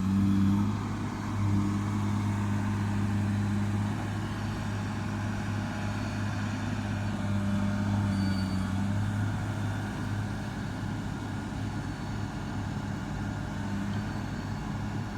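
Excavator's diesel engine running steadily at high revs, a constant hum with no change in pitch.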